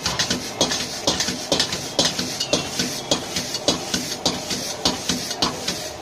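Metal spatula striking and scraping a wok about twice a second as noodles are stir-fried and tossed over a high gas flame, over a steady hiss of sizzling.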